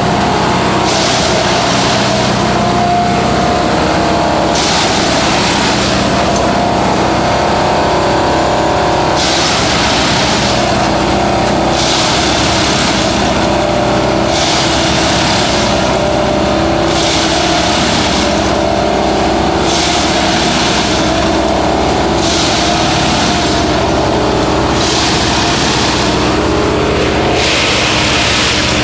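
Railway ballast-tamping machine working: its diesel engine and hydraulics run steadily while a loud rushing, rattling burst comes about every two to three seconds as the vibrating tamping tines plunge into and squeeze the track ballast, cycle after cycle.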